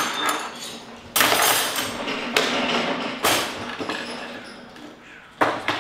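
Clanking and rattling of a metal folding work table being handled: four sharp knocks spread out, each trailing off in a short rattle.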